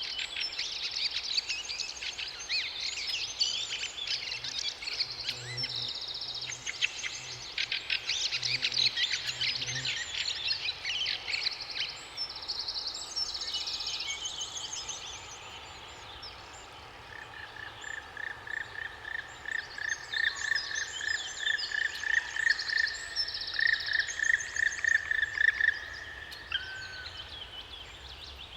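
Several songbirds singing and chirping over a steady background hiss of water. In the second half one bird sings a long series of quick notes held at a single pitch, getting louder before it stops.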